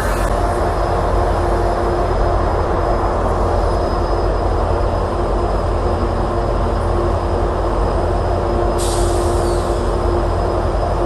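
GO train running with a steady, loud low rumble and a constant hum. A hiss comes in sharply about nine seconds in.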